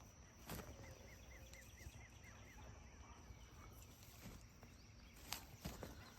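Near-quiet outdoor background in which a bird gives a quick series of about seven short chirps about a second in, with a couple of faint knocks.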